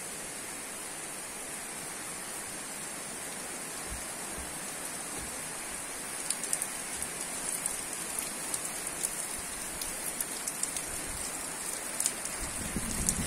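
Heavy rain falling steadily, with sharp drops ticking on a hard surface from about halfway in. A louder, deeper rush of water sets in just before the end.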